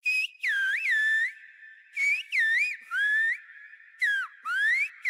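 Silbo gomero, the whistled language of La Gomera: a string of short whistled phrases whose pitch swoops up and down, carrying the words of the lyric. Between the phrases a faint steady tone lingers.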